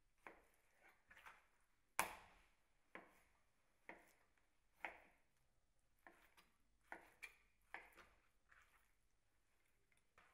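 Kitchen knife cutting salmon into cubes, the blade knocking faintly on the cutting board in a dozen or so irregular strokes, the loudest about two seconds in.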